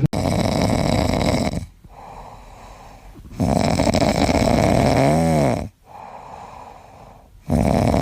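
A pet snoring loudly in a slow rhythm: three long, rasping snores a couple of seconds apart with quieter breaths between. The middle snore carries a whistling tone that rises and falls.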